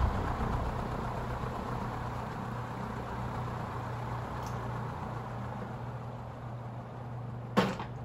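SMC D4W36 ceiling fan's 12-pole motor running with a steady hum and the rush of its spinning blades, growing slowly quieter. Its bearings are newly replaced. Near the end comes a single sharp click, after which the motor hum stops.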